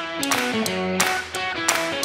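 Background music: a melody of short notes stepping in pitch, over sharp percussion hits.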